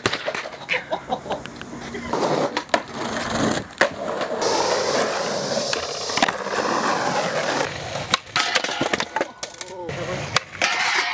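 Skateboards rolling on concrete, with a series of sharp clacks and knocks from boards popping and landing during tricks.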